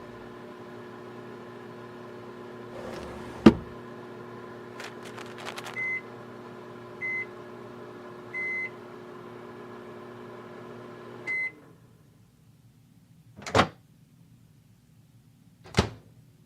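Microwave oven running with a steady hum, sounding four short beeps. The hum cuts off with the last beep about eleven seconds in. A sharp knock comes about three seconds in, and two sharp clicks come after the hum stops.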